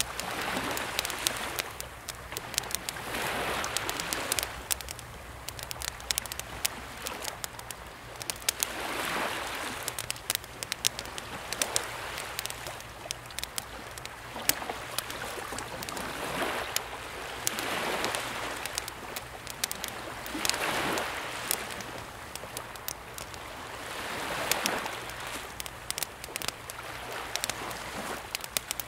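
Wood campfire crackling with frequent sharp pops, over calm sea waves washing ashore that swell and fade every few seconds.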